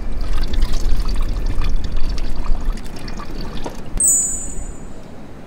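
Wood campfire crackling with many small irregular pops over a low wind rumble. A short high chime rings about four seconds in.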